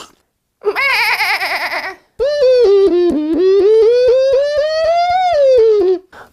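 A man's voice making a sound-effect imitation: a short warbling, wavering tone, then after a brief break a long wobbling tone that slowly climbs in pitch and drops away near the end.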